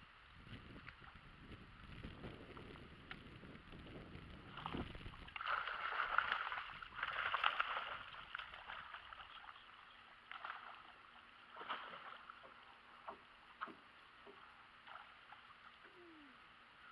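A hooked fish splashing and thrashing at the surface beside a small boat, loudest from about five to eight seconds in, after a low rumble in the first few seconds. Scattered light clicks and knocks follow as it is reeled in and lifted aboard.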